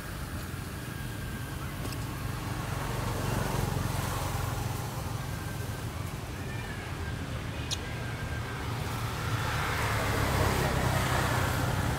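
Steady low rumble of road traffic, swelling as vehicles pass about four seconds in and again near the end.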